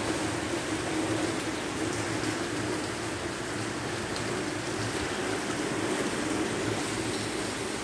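Heavy rain falling steadily on paving and garden plants.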